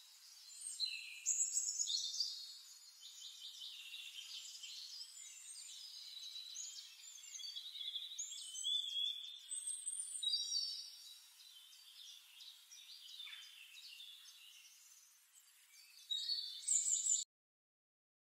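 Several songbirds chirping and singing over one another, a dense mix of short high calls and trills, cutting off suddenly near the end.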